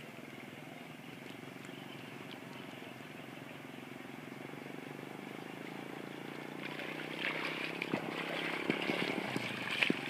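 An engine running steadily, getting louder from about seven seconds in, with scattered knocks and clatter over it near the end.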